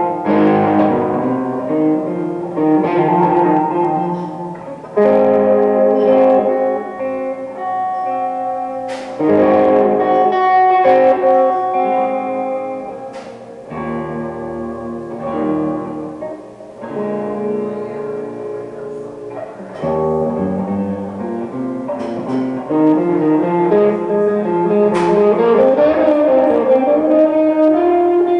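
Solo guitar playing a slow, improvised blues, with notes and chords left to ring between phrases. Near the end a note slides upward in pitch.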